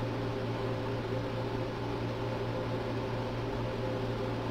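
A steady low hum with a constant hiss under it, unchanging throughout: background machine noise of the fan or air-handler kind.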